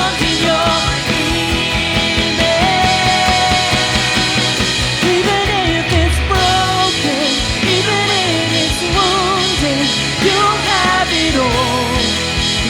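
Church worship band playing a rock-style worship song, with a wordless or unclear sung melody over drums and full band.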